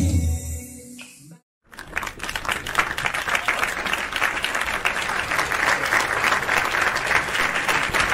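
Music fades out within the first second, and after a brief silence a crowd breaks into steady applause, a dense crackle of many hands clapping.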